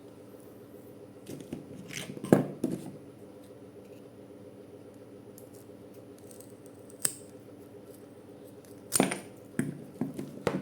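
Clicks and knocks of small hardware being handled: a cluster about two seconds in, a single click near seven seconds, and several more near the end, over a steady low hum.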